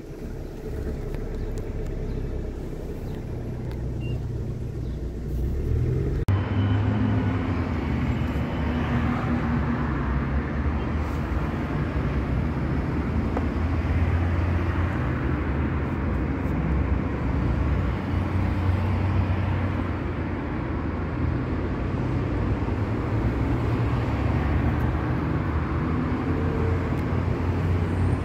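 Steady low rumble of motor-vehicle noise. About six seconds in it changes abruptly to a louder, fuller rumble.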